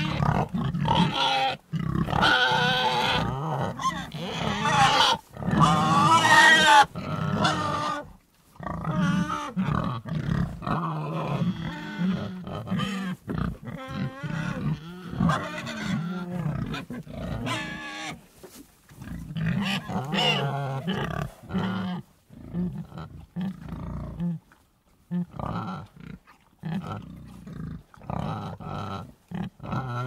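Domestic pigs grunting and squealing, several calls overlapping. Loud, wavering calls crowd the first seven seconds, then shorter grunts come on and off with brief gaps.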